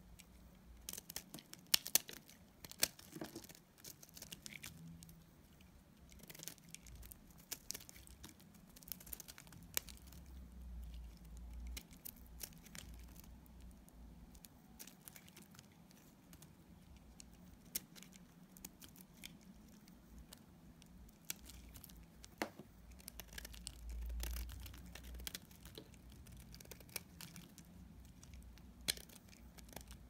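Snap-off utility knife blade cutting and shaving a bar of dry soap: irregular crisp cracks and scraping crackles as curls and flakes break away.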